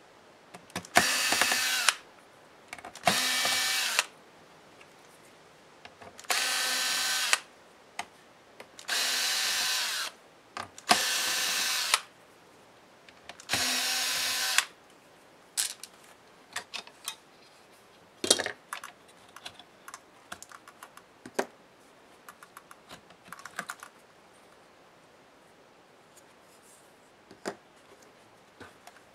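Cordless electric screwdriver running in six short bursts of about a second each, backing out the screws of a laptop chassis. After that come scattered light clicks and taps as the loosened parts are handled.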